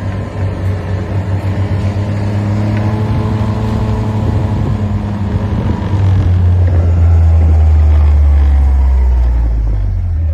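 Car engine and road rumble while driving, growing louder from about six seconds in.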